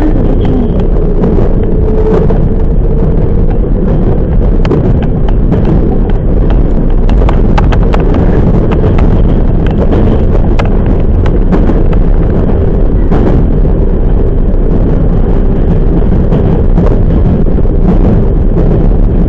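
Running noise of a 10030-series electric train from inside the car: a steady loud rumble of wheels on the track with irregular clicks and clatter from the rails, over a faint steady hum.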